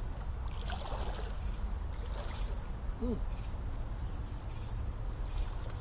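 Creek water trickling over a steady low rumble, with one brief falling call about three seconds in.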